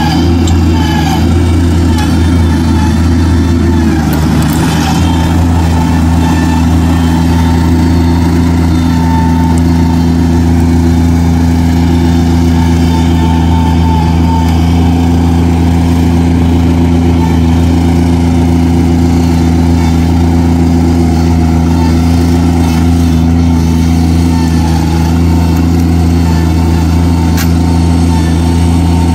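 Bobcat compact track loader's diesel engine running loud and steady close by, its pitch shifting once about four seconds in and then holding.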